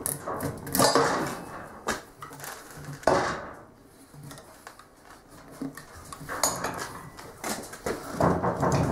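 Steel tire iron clanking and scraping against the wheel rim as it levers a motorcycle tire's bead over the rim edge, in irregular knocks and scrapes.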